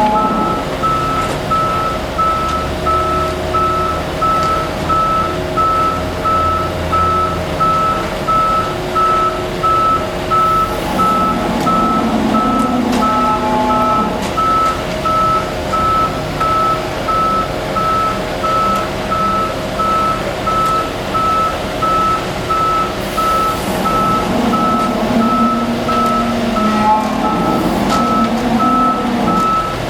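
A concrete truck's reversing alarm beeps steadily at one pitch, about once a second, over the truck's running engine.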